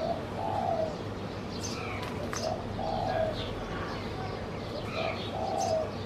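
A dove cooing: a short low note followed by a longer one, repeated three times about two and a half seconds apart. Small birds chirp higher in the background.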